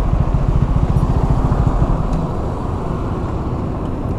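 Motorcycle engine idling close by, a steady fast low throb.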